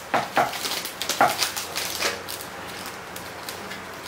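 Crinkling and rustling of individually wrapped cookie packets as they are picked up and set into their box. A few sharp crinkles come in the first two seconds, then the handling goes quieter.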